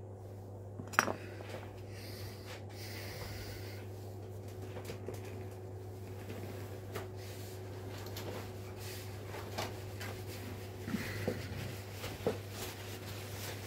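Scattered light clicks and knocks of small chainsaw parts and tools being handled during cleaning, the sharpest about a second in and a few more near the end, over a steady low hum.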